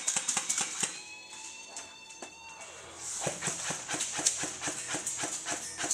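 Airsoft guns firing: rapid sharp snaps, thinning out for a moment and then growing denser about three seconds in.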